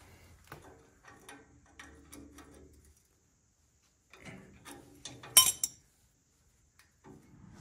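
Pliers clicking and scraping on a badly twisted steel cotter pin as it is worked out of the tractor's clutch connecting rod. It comes as two runs of small metal clicks with a short break between, and the sharpest click comes about five and a half seconds in.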